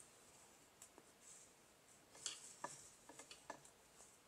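Faint ticks and soft rustling of a crochet hook working yarn through stitches, with a few light clicks spread unevenly through the moment.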